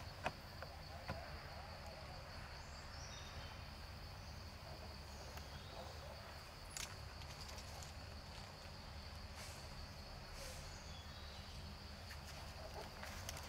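Outdoor ambience with a steady, high-pitched insect drone over a low background hum, and a few faint clicks.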